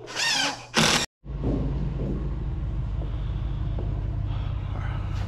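A power drill whirs briefly, its pitch rising and falling, then gives one short louder burst. After a sudden cut, a steady low rumble of an idling truck engine.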